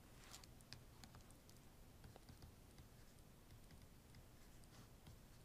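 Near silence with faint scattered clicks and taps of a stylus writing on a tablet screen, over a low steady hum.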